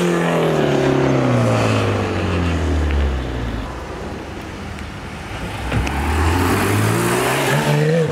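A car engine whose pitch sinks steadily over the first three seconds and settles low and quieter, then climbs again near the end as the engine picks up revs.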